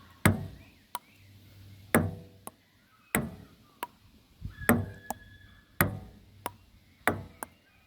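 Table tennis rally: the ball clicking off the paddles and the table in about a dozen sharp knocks, spaced roughly half a second to a second apart.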